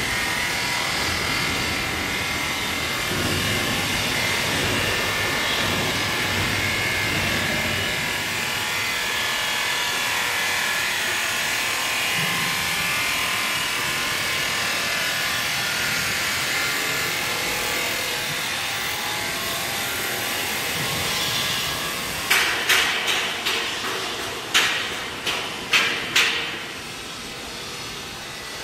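Steady noise of workshop machinery with faint whining tones. Near the end comes a quick series of about eight sharp knocks, each dying away quickly.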